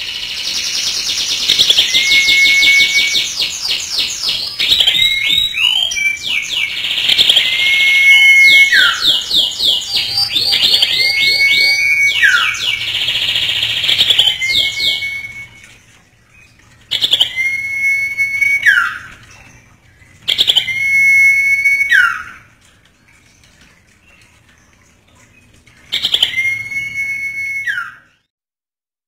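Common iora (cipoh) singing loudly. First come rapid chattering trills mixed with held whistles that drop sharply at the end. Over the second half these thin out to single drawn-out whistles, each ending in a quick falling note, separated by short pauses.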